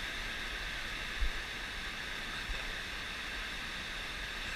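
Steady rushing of a waterfall, with two brief low bumps about a second in and again about halfway.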